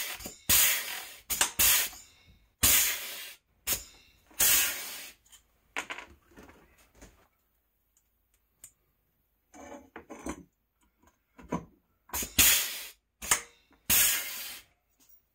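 Harbor Freight pneumatic rivet gun setting pop rivets: short, sharp hisses of air, four in quick succession at first, then a quieter stretch with small handling noises, then three more near the end.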